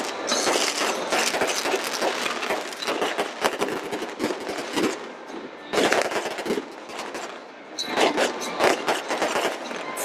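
Fireworks display going off in a continuous barrage of dense crackling and popping, with sharp bangs. Louder bursts come about six seconds and eight seconds in.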